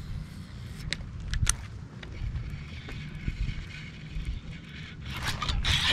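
Wind buffeting the microphone as a steady low rumble, with two sharp clicks between one and two seconds in and a hiss building near the end.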